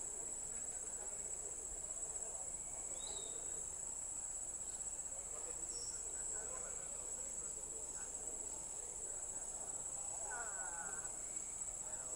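Steady, high-pitched chorus of insects. A short faint chirp comes about three seconds in.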